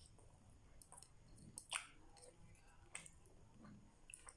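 Faint close-up chewing of grilled barbecue skewers, with a few wet mouth smacks, the loudest about a second and three-quarters in and another at about three seconds.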